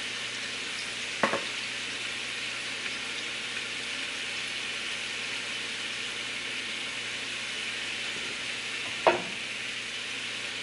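Chicken breast pieces frying in olive oil in a skillet, a steady sizzle, with two short knocks, one about a second in and one near the end.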